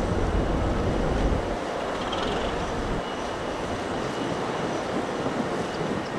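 Wind buffeting the microphone by the open harbour water, heavy for the first second and a half and then easing, over a steady rushing noise.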